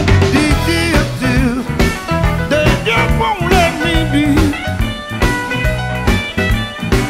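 Electric Chicago blues, an instrumental passage: a lead line bending and wavering in pitch over the band's steady low notes and drum beat.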